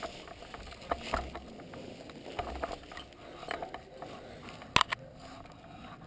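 Scattered clicks and knocks over a low rustle, the loudest a pair of sharp snaps close together near the end.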